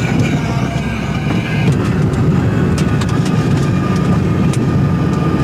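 A car driving over a rough dirt track, heard from inside the cabin: a steady, loud rumble of engine and tyres, with scattered sharp clicks.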